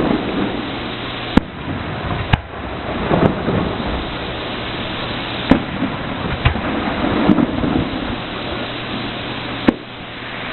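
Aerial fireworks shells bursting with several sharp bangs, the loudest three spaced a few seconds apart, over a continuous rumble and crackle. The booms echo around the valley like thunder.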